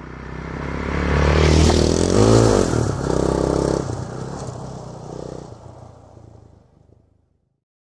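Dirt-track motorcycle engine running on a trail, growing louder to a peak about two seconds in, with a rise and fall in pitch as it revs. It then dies away to nothing a little before the end.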